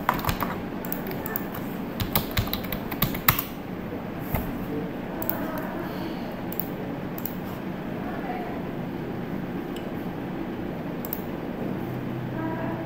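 Computer keyboard typing: a quick run of key clicks over the first few seconds as login details are entered, then only a steady low hum.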